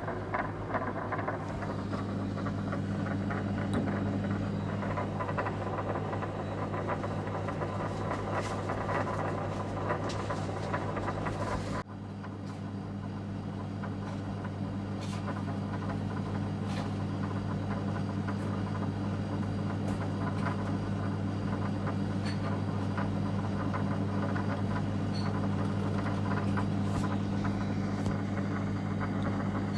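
A steady low machine rumble with a constant hum and a dense rattle, broken by a brief dip about twelve seconds in.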